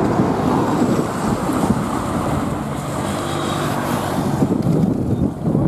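Road traffic with wind buffeting the microphone, and the steady engine drone of an approaching bus in the middle.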